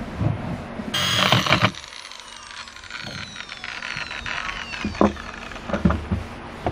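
Corded electric drill running about a second in, then winding down with a whine that falls in pitch over several seconds. A few dull wooden knocks near the end.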